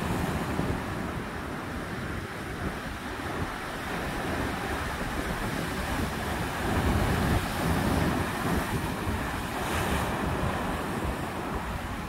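Ocean waves washing onto the shore, with wind buffeting the microphone as a low rumble. A wave swells louder about seven seconds in, and a short hissing wash follows near the end.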